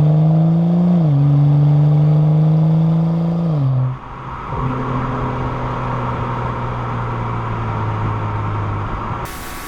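BMW N55 3.0-litre turbocharged straight-six in a 2011 335i with the stock exhaust, pulling under acceleration: its note climbs, then drops at quick upshifts about a second in and again about three and a half seconds in. It then eases off and runs at a steady, lower note.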